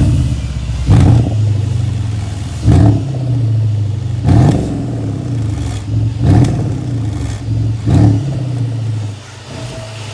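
2014 Mercedes-Benz SL550's 4.7-litre twin-turbo V8, its exhaust flaps open in the loud exhaust setting, rumbling low and revved in short sharp blips about every one and a half to two seconds.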